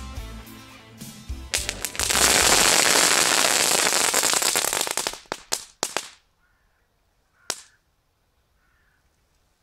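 A foil-wrapped ball of ground-up crackling-ball firework powder going off: a loud, dense crackling rush for about three seconds, then a few separate sharp cracks and one last crack a moment later.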